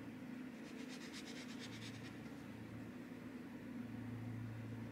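Faint scratchy strokes of a paintbrush laying wet water-soluble graphite paint onto textured watercolour paper, a quick run of short strokes in the first couple of seconds, over a low steady hum.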